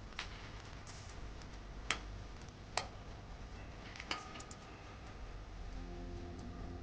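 Four sharp taps or clicks, unevenly spaced, over a low steady hum.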